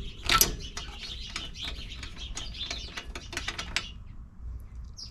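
Socket ratchet clicking irregularly as a spark plug is backed out of a Craftsman snowblower engine. The clicking stops about four seconds in.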